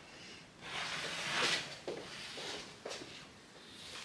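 Crisp meringue-and-toasted-almond cake layer crackling and rustling under hands pressing it gently onto the cream filling, loudest about a second and a half in, followed by a few small soft knocks.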